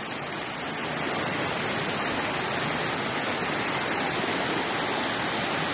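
Small waterfall cascading over rocks: a steady rush of splashing water, growing a little louder about a second in.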